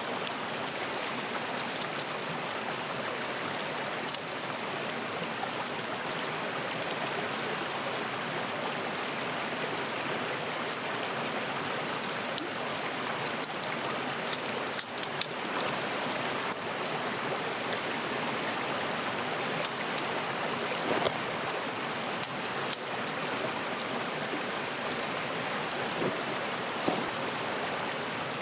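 River water flowing in a steady rushing stream, with a few short faint clicks and knocks.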